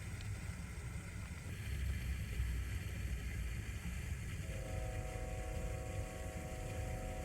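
Train passing on nearby tracks with a steady low rumble. About four and a half seconds in, its horn starts sounding a steady chord and holds it.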